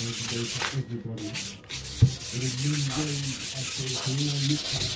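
Wet-or-dry 600-grit abrasive paper rubbed back and forth by hand over a wet black marble clock case, a fast run of rasping strokes. The strokes pause briefly about a second in, and there is one sharp tap at about two seconds. This is fine wet sanding to refine the surface after flattening.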